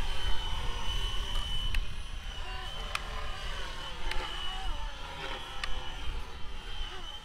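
Fly Wing FW450L-V3 450-size electric RC helicopter in flight, its motor and rotors making a steady high whine that wavers slightly as it manoeuvres. A low wind rumble on the microphone eases off over the first couple of seconds, and a few faint clicks sound.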